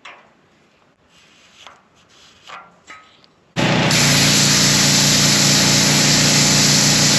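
A few faint short scrapes, then about three and a half seconds in a plasma cutter's arc strikes with a sudden loud, steady hiss and hum as it cuts into a steel gate hinge to trim it narrower.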